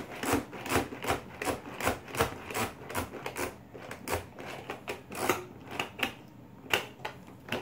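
Plastic Spider-Man toy playset's mechanism worked by hand, clicking rapidly about three times a second, with a short pause near the end.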